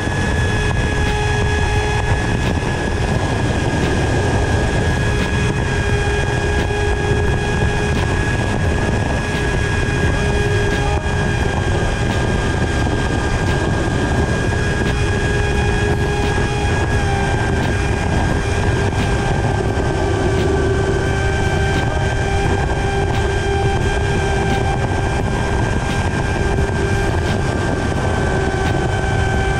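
FPV quadcopter's brushless motors and propellers whining in flight, heard from the onboard camera, over a low wind rumble on the microphone. The whine holds a fairly steady pitch with small shifts up and down.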